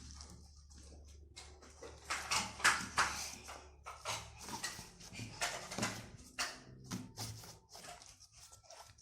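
Homemade glue slime being mixed and worked by hand, giving irregular sticky squelches and clicks.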